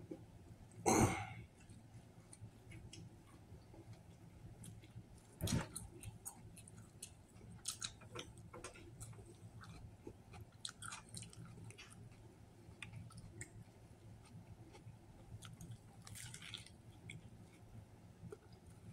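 A man chewing mouthfuls of a Subway club sandwich close to the microphone, with scattered wet mouth clicks and smacks, a bite into the soft bread, and two louder short sounds about one and five seconds in.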